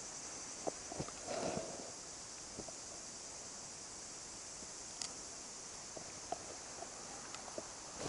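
Insects chirring outdoors in a steady high-pitched drone, with a few faint scattered clicks.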